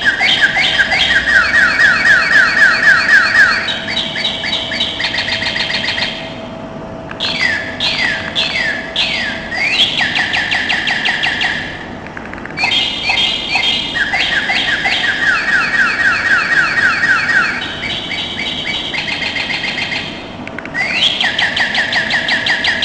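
Goldfinch-shaped wireless doorbell playing one of its birdsong-trill ring tunes: rapid chirps and trills in phrases with short pauses between them. The tune starts over about halfway through.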